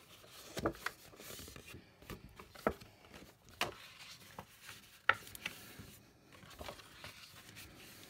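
Stiff white card of a pre-scored box blank being folded by hand along its score lines into mountain folds: soft rubbing and rustling of the card, with a handful of short, sharp crackles as the creases give.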